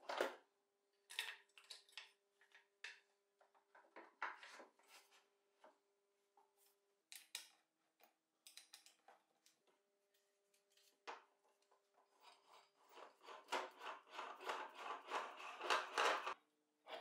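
Plywood lathe parts and a wooden sharpening jig being handled, taken off and fitted: scattered wooden knocks, clicks and rubbing, with a longer stretch of scraping and rubbing about three seconds before the end.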